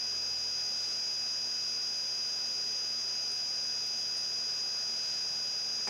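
Steady electrical hiss with a thin high-pitched whine and a faint low hum: background room tone with no other sound.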